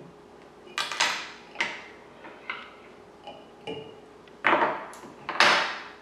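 Hand and tool handling at a fly-tying vise while whip-finishing the thread: a series of about eight short scrapes and rustles, each cutting in sharply and fading quickly, the two loudest near the end.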